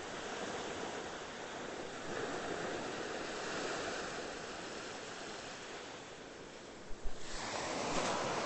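Ocean surf breaking on a beach: a steady rush of waves that swells, eases off, and builds again about seven seconds in, with a couple of low thumps just before the new surge.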